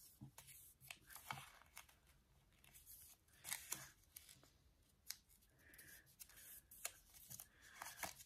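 Faint crackling and rustling of origami paper being folded and pressed into creases by hand on a wooden table, with scattered short crisp snaps and taps.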